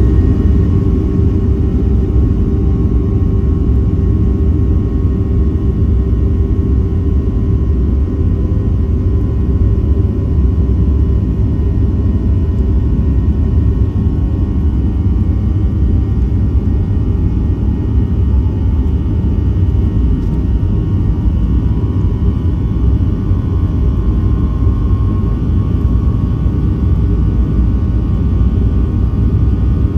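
Jet airliner's engines and wheels rolling on the runway, heard from the cabin over the wing: a steady, loud rumble with a faint whine above it.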